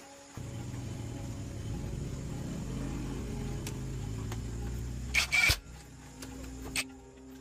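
A machine runs with a steady low hum for about five seconds, then stops. Just before it stops there is a short, loud hiss, and a faint click follows near the end.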